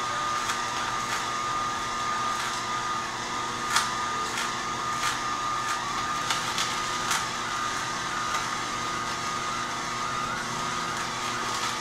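Electric horizontal masticating juicer running steadily with a constant whine while poor man's pepper greens are fed down its chute. A few sharp clicks sound as the stems are crushed.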